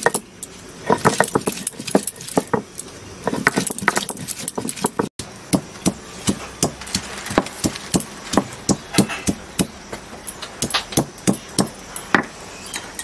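Stone roller knocking and grinding on a flat stone grinding slab (shil-nora) as ginger, garlic and onion are crushed into paste, in quick irregular knocks, with wrist bangles clinking along.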